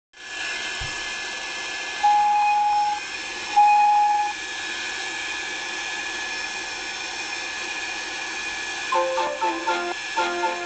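Steady hiss with two train-whistle toots, one of about a second starting about 2 seconds in and a shorter one about a second and a half later. Music with short, bouncy notes begins about 9 seconds in.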